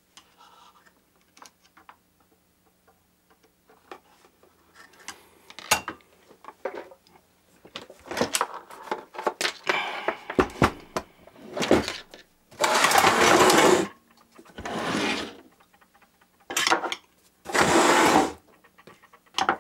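Handling noise of a vintage sewing machine and its wooden case: light clicks and knocks at first, then heavier knocks and several loud scraping or sliding sounds of about a second each in the second half as the machine head is lifted out of the case and set down on the table.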